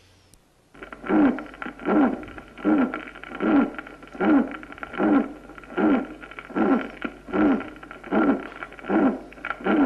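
Recorded heart sounds with a musical murmur of the kind likened to a bird's chirp, a dove's coo or a moan. It starts just under a second in, then comes with every beat, about twelve beats evenly spaced a little more than one a second, each carrying a short tone that drops in pitch.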